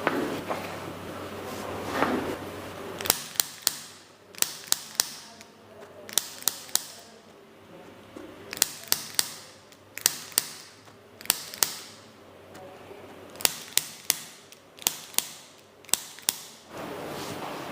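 Sharp joint cracks during a chiropractic spinal adjustment, about two dozen in quick groups of two to four, each a crisp pop.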